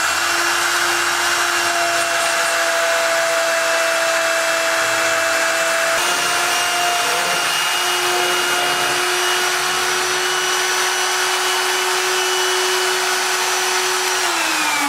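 Trim-router spindle on a small CNC router running at high speed with a steady whine while it cuts, its pitch shifting slightly partway through. Near the end it is switched off and winds down in a falling whine as the job finishes.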